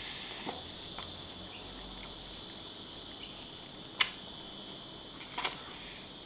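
Biting into and chewing a frozen brown sugar boba ice cream bar: a few short sharp clicks and mouth sounds, the clearest about four seconds in and a quick pair near the end, over a steady high-pitched background hiss.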